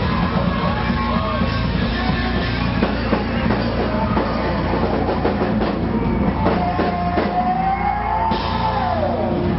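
Live rock band playing, led by a drum kit and electric guitar. Near the end a held note bends up in pitch and then drops away.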